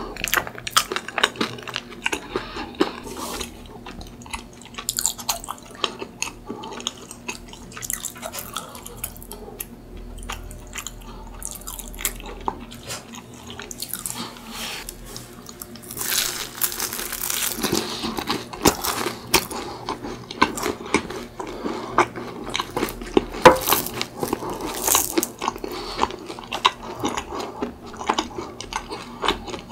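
Close-miked eating of croffles (crispy, chewy waffle-pressed croissants with cream and chocolate syrup): a steady run of crunching, chewing and wet mouth clicks. It gets denser and louder about halfway through, with crisp bites.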